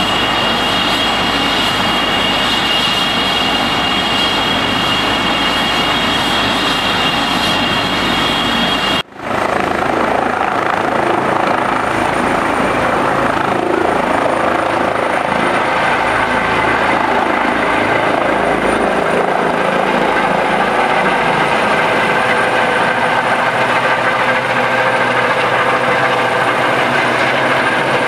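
Eurocopter EC135 trauma helicopter's twin turbines whining and its rotor turning at speed on the ground; after a cut about nine seconds in, louder rotor and turbine noise as it lifts off and climbs overhead.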